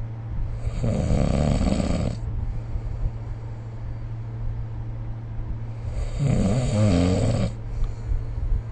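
A sleeping person snoring: two snores, each about a second and a half long and roughly five seconds apart, over a steady low hum.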